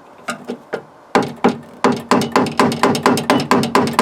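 Light hammer taps knocking a door lock's notched locking ring round to free the handle: a few taps, a short pause, then a steady run of about four to five taps a second, each with a short metallic ring.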